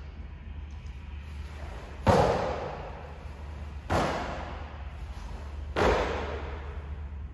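Three sharp snapping impacts about two seconds apart, each ringing briefly in the hall, made by a karateka's strikes and stance changes in the kata Jion, over a steady low hum.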